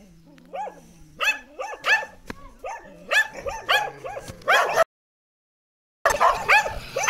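Dogs barking repeatedly in quick succession, the barks sometimes overlapping. The sound cuts out abruptly for about a second just before the end, then the barking starts up again.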